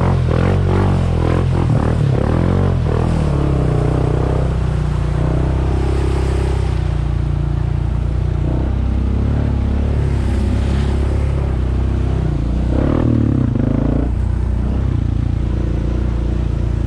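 Honda ATV engine running as the quad rides along, a steady low drone that shifts a little in pitch as the throttle changes.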